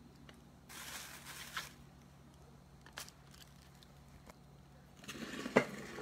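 Rustling and crinkling from items being handled on a table close to the microphone, with a single click partway through and two sharp knocks near the end.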